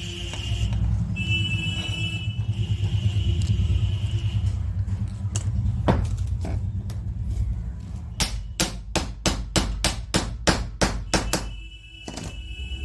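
Rapid hammer strikes, about a dozen at roughly four a second in the second half, after a couple of single knocks, over a steady low hum. These are typical of tapping at a hammer-drill bit that is stuck in a rotary hammer's chuck to work it loose.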